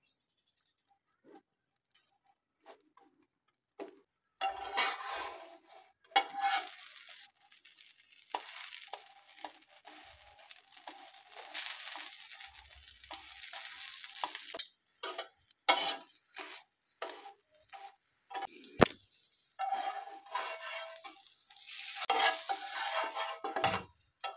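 Bread slice frying in oil on a flat pan: the oil sizzles in spells, starting about four seconds in, while metal tongs scrape and click against the pan as the slice is turned.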